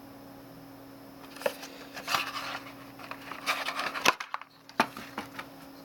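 Hands handling a folding knife and its box: irregular rustling and small clicks start about a second and a half in, with a sharper click a little after four seconds and another soon after.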